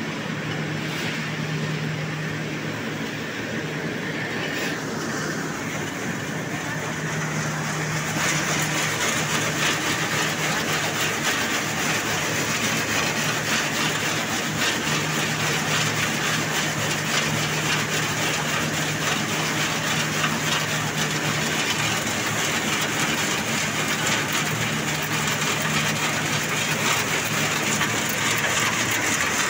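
Turmeric grading machine running: a steady low motor hum under a dense rattle of dried turmeric fingers shaking over its mesh screen. The rattle grows louder about eight seconds in.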